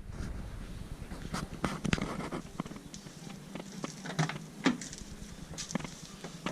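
Irregular sharp clicks and knocks, a few of them louder, over a low steady hum.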